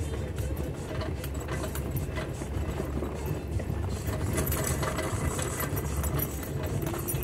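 Jeep Wrangler JK engine running steadily at low trail speed as it rolls over gravel, with a low hum and many small clicks and rattles throughout.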